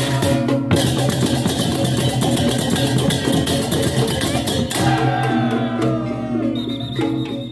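Balinese baleganjur gamelan playing: fast, dense clashing percussion strokes over sustained pitched bronze tones. The rapid strokes thin out about five seconds in while the ringing tones carry on.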